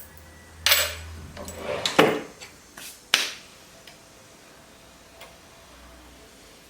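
A few sharp knocks and clatters, like objects set down or struck on a hard surface, the loudest about two seconds in; after that only faint room tone with a low hum.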